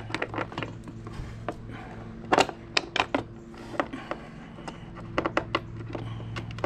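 Irregular clicks and knocks of hard plastic parts being handled as a plastic dump-cart handle piece is fitted against the cart's plastic tub, with a cluster of sharp clicks about two and a half seconds in and a few more later, over a steady low hum.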